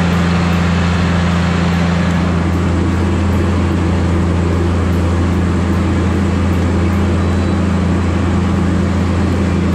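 Tigercat 718E wheeled feller buncher's diesel engine running steadily with a constant low drone as the machine drives through deep flood water, its tyres churning up continuous splashing and spray.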